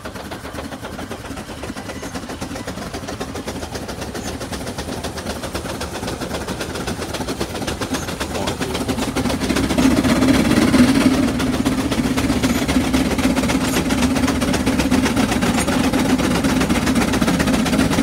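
Steam traction engine pulling a 12-bottom plow: its exhaust chuffs in a rapid, steady rhythm under heavy load. It grows louder over the first half and then holds steady.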